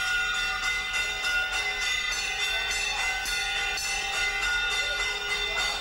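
Metal temple bells ringing, struck over and over in a quick steady rhythm of about three strikes a second, their tones hanging on between strikes.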